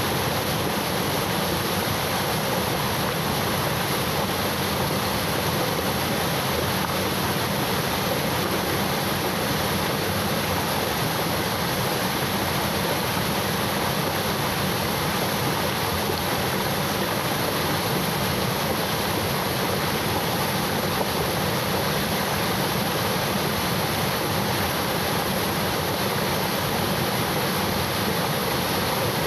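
Waterfall flowing heavily: a steady, even rush of falling water with no breaks.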